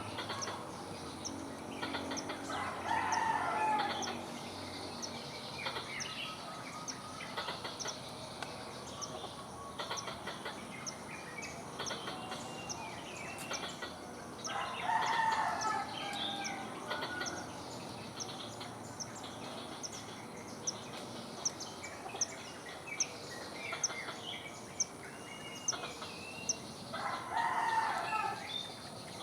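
Animal calls in forest ambience: three loud calls, each about a second and a half long, roughly twelve seconds apart, over a steady run of faint high ticks at about two a second.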